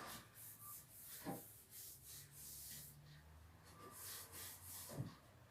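Cloth wiping the inside of a refrigerator: a faint run of short rubbing strokes, with two light knocks, one about a second in and one near the end.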